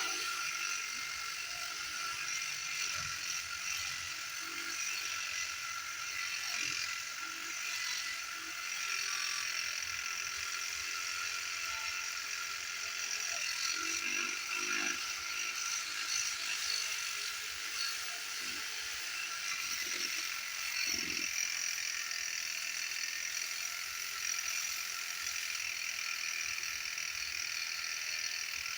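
Reciprocating saw (Sawzall) running steadily as its blade rips lengthwise through a thick timber beam.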